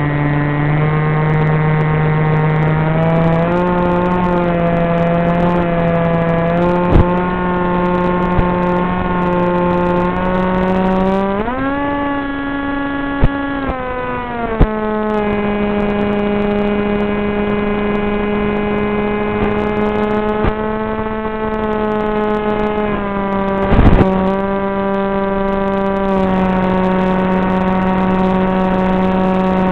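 Brushless motor and propeller of an FPV flying wing whining in flight, the pitch stepping between steady levels with throttle changes and rising sharply about a third of the way in before settling lower. A few sharp clicks and a short noisy burst near the end break in.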